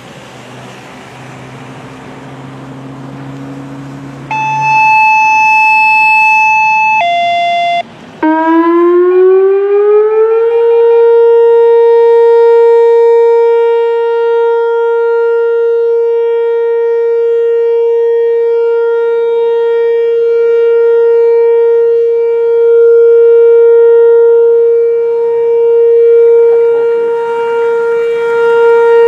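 A hiss for the first few seconds, then two short steady tones, the second lower, and then a loud tone that glides up over about two seconds and holds at one steady pitch, like a siren.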